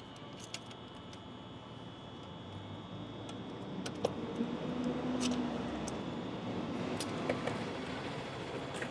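Faint handling noise of metal hose clamps being fitted over an intercooler boot, with a few light metallic clicks and clinks.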